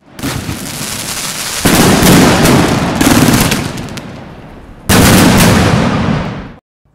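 Aerial fireworks firing in fast volleys: a dense run of bangs and crackle. It jumps louder about a second and a half in, again near three seconds and near five seconds, then cuts off suddenly just before the end.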